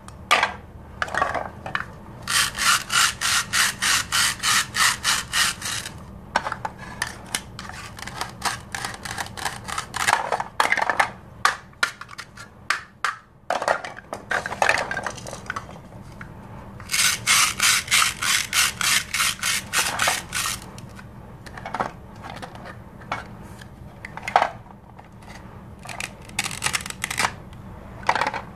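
Plastic toy knife sawing through toy fruit halves held together by hook-and-loop patches: two long runs of quick rasping strokes, about five a second, about two seconds in and again about seventeen seconds in. Between them come scattered clicks and short scrapes of hard plastic pieces being handled.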